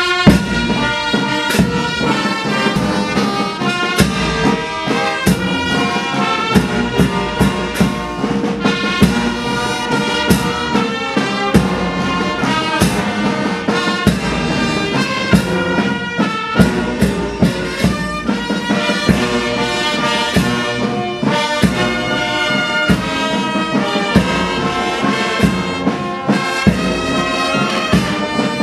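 Military brass band playing a march, the full brass carrying the tune over steady, regular drum strokes.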